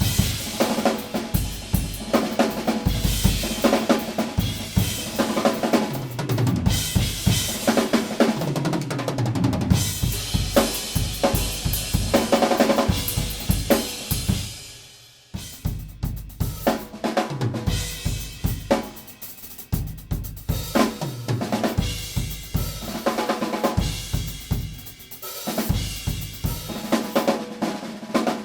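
Acoustic drum kit played solo: a dense run of snare, bass drum, hi-hat and cymbal strokes. The playing breaks off briefly about halfway through, then starts again.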